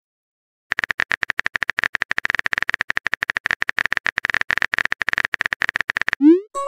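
Phone keyboard typing sound effect: a rapid run of light clicks that starts just under a second in and stops shortly before the end. It is followed by a short rising pop near the end.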